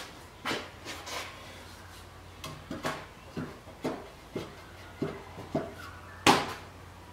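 A series of light wooden knocks and taps, about a dozen, irregularly spaced and coming closer together after the first couple of seconds, as a wooden board is handled and set against a wooden post. The loudest knock comes near the end.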